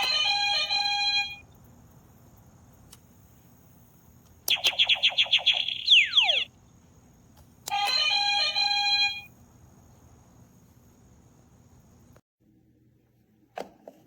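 Electronic game buzzers playing their sound effects: a steady chime-like tone about a second long, then a rapid pulsing beep with a falling whistle near its end, then the first tone again. A short faint blip comes near the end.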